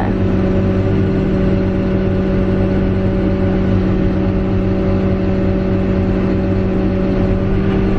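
John Deere tractor engine running with a steady hum, heard inside the cab, while the tractor's hydraulics fold a land roller's wing up.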